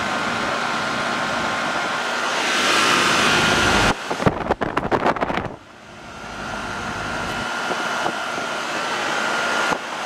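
Goodman air-conditioning condenser running, its compressor and fan giving a steady noise with a faint steady tone; the compressor is running on a newly fitted 35/5 dual run capacitor. About four seconds in there is a second and a half of clicks and knocks, after which the running noise drops away and then builds back up.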